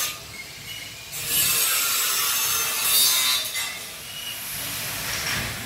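Angle grinder grinding steel in bursts, throwing sparks; the longest and loudest run lasts from about one to three and a half seconds in, with a fainter run near the end.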